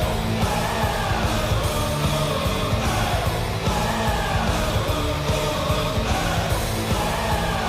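NHL arena goal song: heavy rock music with shouted vocals, played over the PA to celebrate a goal.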